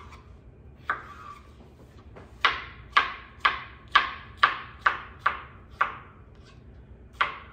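Ceramic kitchen knife chopping a cucumber on a rigid cutting board: a single cut about a second in, then a steady run of about eight sharp chops, roughly two a second, and a couple more near the end.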